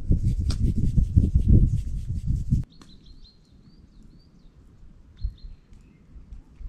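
A loud, low rumbling, rubbing noise that cuts off abruptly after about two and a half seconds. Birds then chirp in short, high calls.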